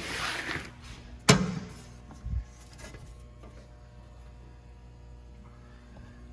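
A short hiss of air from the belt grinder's air-operated belt tensioner, then a single sharp click and a short low thump. A faint steady hum follows.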